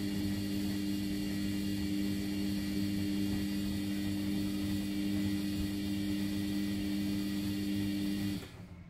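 Sharp (Vestel) ES-GFB7145W front-loading washing machine turning its drum in a main-wash tumble. The motor hums steadily over the churn of soapy water and laundry, and the motor stops suddenly near the end.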